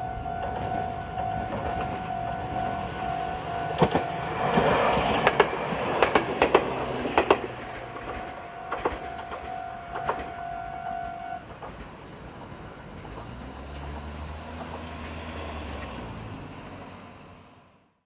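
A Japanese level crossing's warning bell ringing in a steady repeating tone while a Meitetsu electric train passes, its wheels clacking sharply over the rail joints from about four to seven seconds in. The bell stops about eleven seconds in, leaving a low rumble of a car, and the sound fades out near the end.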